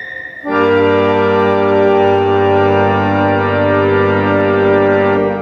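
An 1890–91 Rodolphe Fils & Debain harmonium (a French reed organ) sounding a loud, full chord with deep bass. The chord comes in about half a second in, holds steady and is released at the very end, closing the passage.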